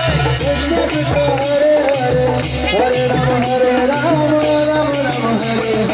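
Kirtan: a group of voices singing a devotional chant over a steady jingling beat of hand cymbals, about two strikes a second.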